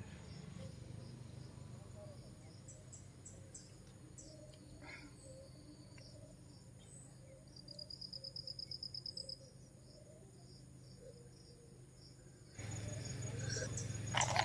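Faint insect trill, cricket-like: a high, evenly pulsed buzz of about ten pulses over a second and a half midway, with a few faint high chirps earlier. A low steady background rumble runs under it and turns into a louder rushing noise that starts suddenly near the end.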